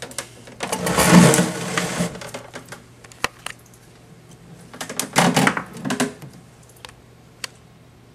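Two loud bursts of rubbing and scraping from the camera being handled and moved, the first about half a second in and the second around five seconds in, with a few sharp clicks between and after. A faint steady hum runs underneath.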